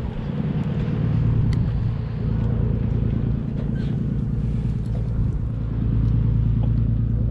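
An engine running steadily with a low rumble, getting a little louder about three-quarters of the way through.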